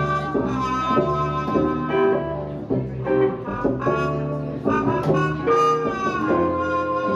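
Small live jazz-blues band playing an instrumental passage with no singing: upright bass, guitar and horns, with a lead line of long held notes that bend, one sliding down about five and a half seconds in.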